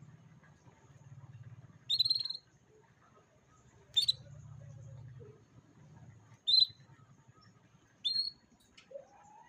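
Canary giving short, sharp chirp calls, four of them about two seconds apart, over a faint low hum.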